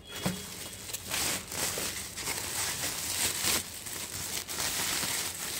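Woven plastic sack rustling and crinkling as it is handled and rummaged through, with irregular crackles and scrapes.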